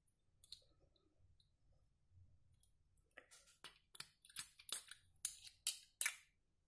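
Hands working a perfume bottle's metal cap and the plastic wrap around its spray neck: a few faint ticks, then from about halfway through a quick run of about a dozen short, sharp clicks and crinkles.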